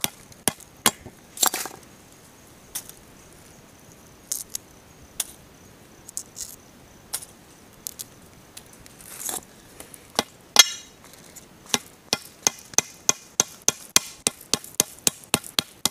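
A hammer cracking the hard shell of a pindoba palm nut on a stone: scattered single knocks at first, then a fast run of sharp blows, about three a second, for the last few seconds.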